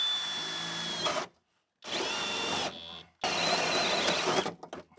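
Power drill cutting a 44 mm (1 3/4 inch) hole, run in three bursts of a second or so, each one speeding up with a rising whine, with short stops between them.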